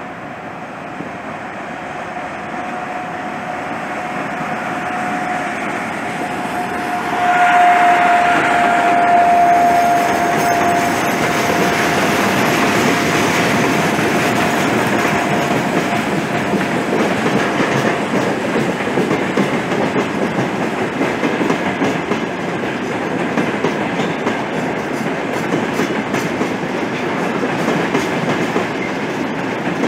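Freight train on broad-gauge track passing close by, with covered and hopper wagons rolling by in a continuous rumble and clatter of wheels. A steady high whine from the locomotive is loudest as it passes, about seven to ten seconds in, and fades out partway through the wagons.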